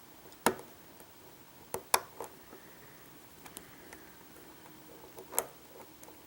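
Scattered light metallic clicks of a short hook pick working the pins of a Vachette V5 pin-tumbler lock under pry-bar tension. The sharpest clicks come about half a second, two seconds and five seconds in.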